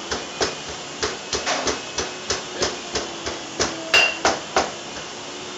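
Roasted garlic and chili being pounded to a paste with a pestle in a mortar: repeated knocks, about three a second and slightly uneven, a few with a short ring. They stop about four and a half seconds in.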